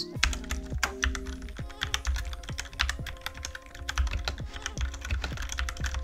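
Typing on a Tecware Spectre Pro mechanical keyboard with brown switches: a rapid, irregular run of key clicks.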